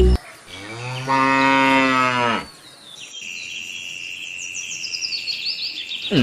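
A cow moos once, a single long call of about two seconds. Then birds chirp repeatedly over a steady high-pitched tone.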